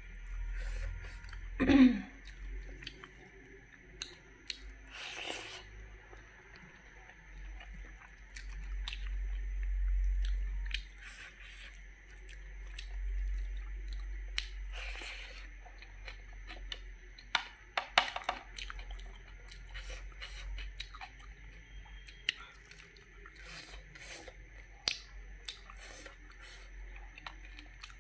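Close-up chewing and mouth sounds of someone eating cooked wood larvae with rice, with many small sharp crunches and clicks scattered throughout. One short falling vocal sound about two seconds in.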